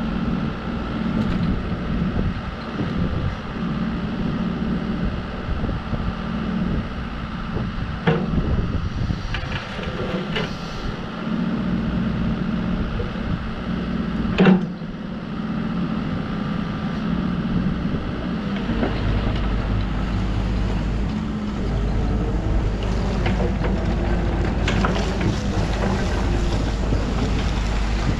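Bobcat E50 mini excavator's diesel engine running steadily, with a few sharp knocks, the loudest about halfway through. From about two-thirds of the way in the engine sound grows deeper and heavier.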